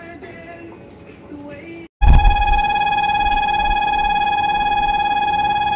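A faint melody plays, then cuts off. About two seconds in, a loud, steady electric ringing tone starts abruptly and holds without a break, typical of a railway station's departure bell on the platform.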